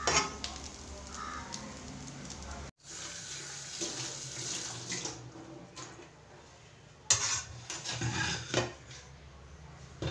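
A metal spoon scrapes through rice in a pan for the first few seconds. After a cut, a tap runs into a sink and steel dishes clatter as they are washed, with the loudest knocks near the end.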